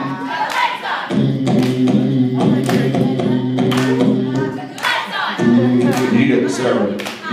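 Group of voices singing a cappella over a sustained low note, with sharp percussive hits about once a second.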